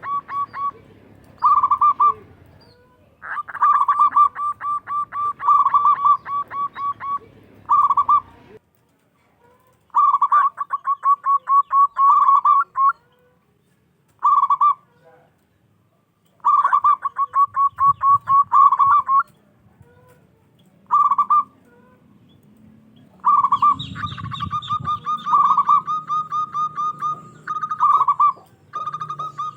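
Zebra dove (perkutut) cooing loudly: phrases of rapidly repeated notes, about four a second, each phrase led by a short separate note, with pauses of a few seconds between phrases.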